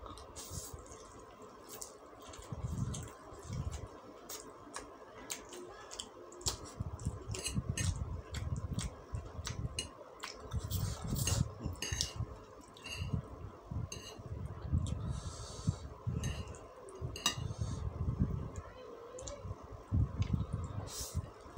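Close-up eating sounds: steady chewing of fried noodles, with frequent wet mouth clicks and smacks and metal fork and spoon clinking and scraping on a ceramic plate.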